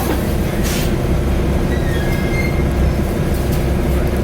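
A 2010 Nova Bus LFS articulated bus with a Cummins ISL diesel engine, heard from inside the cabin while it drives: a steady low rumble with a constant whine over it. A short hiss comes about a second in.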